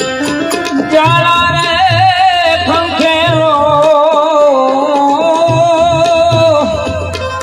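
Music of a Gujarati prabhatiyu (devotional morning song): one long, wavering melody line held unbroken over a regular drum beat.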